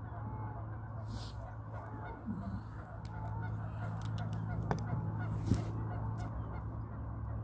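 A flock of waterfowl calling continually, many short honking calls overlapping, over a steady low hum, with a brief sharp click about three quarters of the way through.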